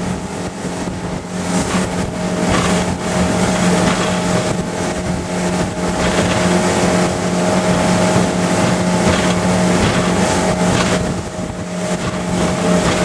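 Motorboat running at speed: a steady engine drone over the rush of water churning in the wake.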